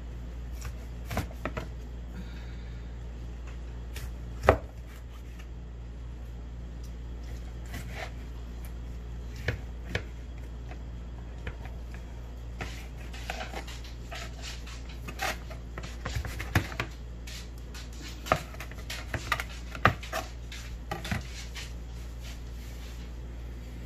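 Knife slicing through a rack of smoked pork spareribs on a plastic tray: irregular knocks and taps of the blade, one sharp knock about four seconds in and a quicker flurry in the second half. A steady low hum runs underneath.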